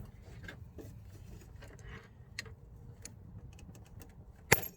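Needle-nose pliers working at a metal gear-selector cable clip, making scattered small metallic clicks and ticks, then one sharp metallic snap near the end as the clip springs off and is lost.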